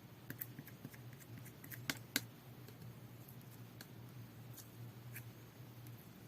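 Two-layer jelly-feel slime being pressed and played with by hand, making scattered faint sharp clicks and pops, with two louder pops about two seconds in.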